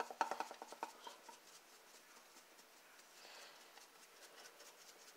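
A shaker container of ground cumin being shaken: a quick run of light rattling taps for about the first second, then only faint scattered taps.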